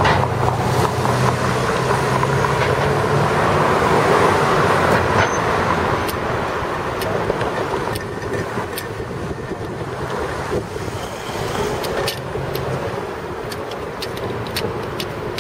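Road traffic on a city street: a motor vehicle's engine running close by for the first several seconds, then lighter traffic noise with scattered small clicks.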